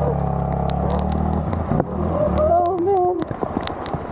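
Motorcycle engine running at a steady pace, easing off about two seconds in, with scattered sharp ticks over it.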